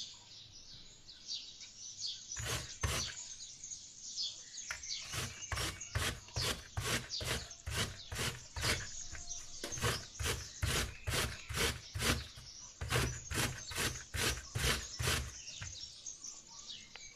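A fresh apple being grated on a flat stainless-steel grater: a rasping stroke about two or three times a second. The strokes start about two seconds in, pause briefly, and stop shortly before the end.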